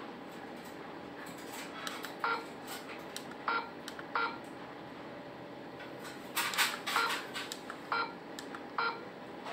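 ZKTeco WL-20 attendance terminal's keypad beeping as its buttons are pressed to move through the menus. There are about nine short electronic beeps at uneven intervals, several in quick succession around six to seven seconds in.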